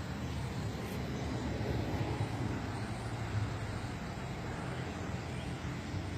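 Steady low hum and rumble of distant road traffic.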